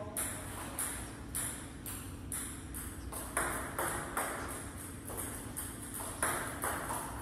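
Table tennis ball clicking off the rubber-faced paddles and bouncing on the table in a continuous rally, about two to three sharp ticks a second.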